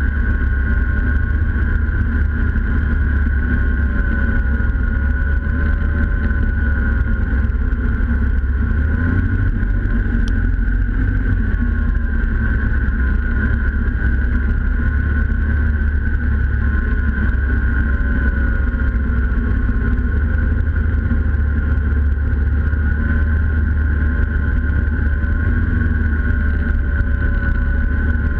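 Snowmobile engine running at a steady cruising speed, heard close up from a camera mounted on the sled. A deep rumble lies under a steady high whine that rises and falls slightly in pitch as the throttle varies.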